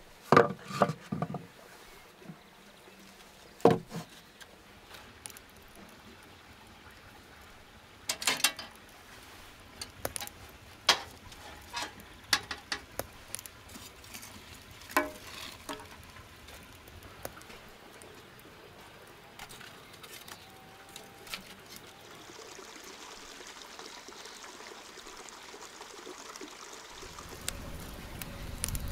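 Scattered knocks, clatters and scrapes of firewood and metal tongs being handled in a wood-fired oven and brick firebox, busiest in the first second and a half. Near the end comes the low steady rush of a log fire burning in a dome oven, with a few crackles.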